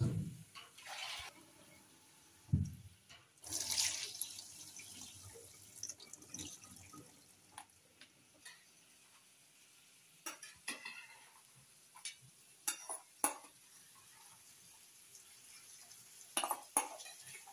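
Water running from a kitchen tap into a stainless steel bowl at the sink in short spells, with sharp clinks of metal bowls and a metal spoon against metal; a few clinks come close together near the end.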